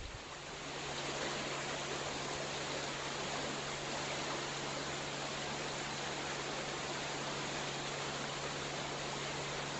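Mountain stream water rushing steadily, swelling up about a second in.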